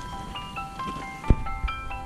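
Background music: a bright melody of short, quickly stepping notes. A sharp low thump, the loudest moment, comes a little over a second in, with a smaller one just after.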